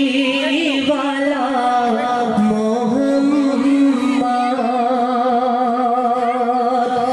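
Devotional gazal music: a slow melody of long, held, wavering notes with singing.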